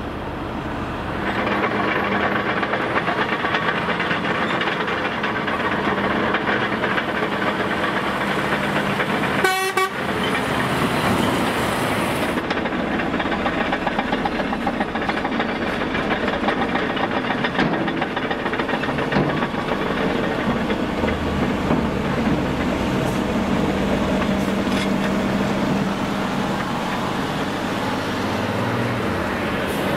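Heavy diesel earthmoving machines running with a steady, dense rattle: a Volvo FMX tipper truck with its bed raised, then a Cat excavator, Cat dozer and Hamm roller working together. A brief sharp sound cuts in about ten seconds in.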